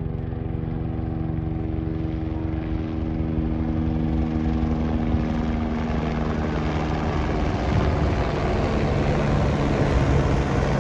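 Car on the road: a steady engine hum under road and wind noise that builds over the first few seconds and then holds.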